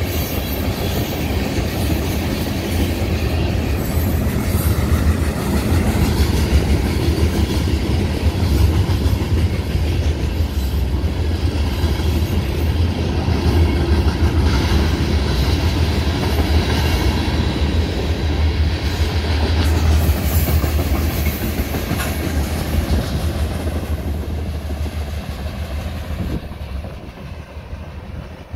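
Grain train of covered hopper cars rolling past, a steady rumble with the clickety-clack of wheels over the rail joints, fading over the last few seconds.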